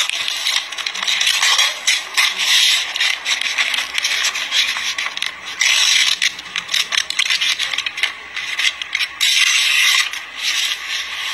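Loud, irregular scraping and rubbing noise coming in bursts of one to two seconds.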